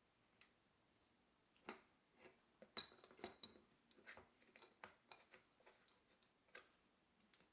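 Faint scattered clicks and taps of small parts being handled while a dishwasher drain hose is worked loose, with one brief ringing metallic clink about three seconds in.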